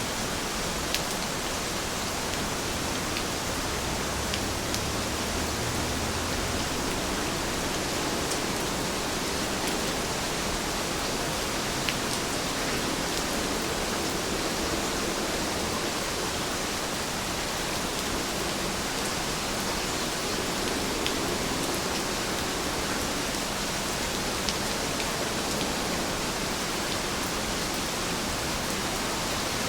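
Steady rain falling as an even hiss, with a few louder single drops standing out now and then.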